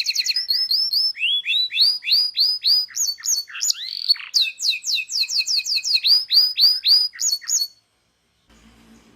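Local domestic canary singing a full song of fast rolling trills and rapidly repeated chirped notes, shifting to a new phrase about every second, loud and continuous until it stops near the end. After a brief silence a faint low hum follows.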